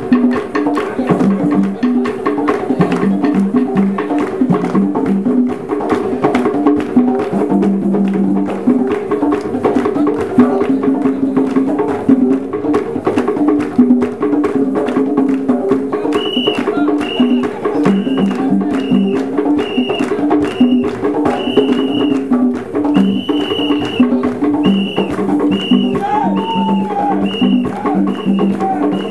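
East African drum troupe playing a fast, dense rhythm on hand drums. From about halfway, a short high ping repeats roughly once or twice a second over the drumming.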